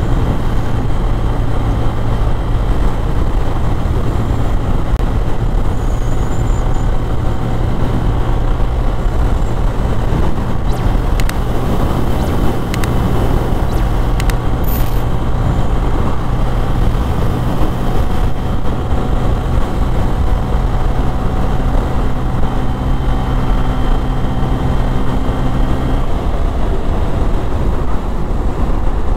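Motorcycle engine running at a steady cruise, heard from the rider's seat with wind and road noise; the engine note changes near the end.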